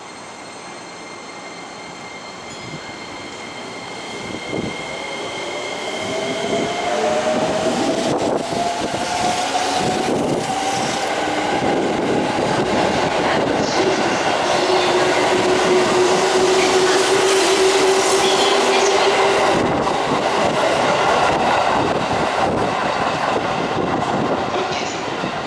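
JR East 205 series electric commuter train pulling away from a station platform. Its motors whine, rising in pitch as it picks up speed, over the clicking of wheels on the rails. The sound grows loud as the cars pass close by, then eases toward the end.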